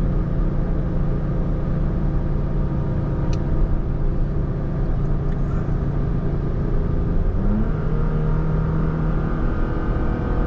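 The 3.5-litre V6 of a 2019 Toyota Tacoma TRD Sport under heavy load, towing a travel trailer up a long grade, heard inside the cab over steady road noise. About seven seconds in the engine note rises and holds higher as the automatic shifts between third and fourth.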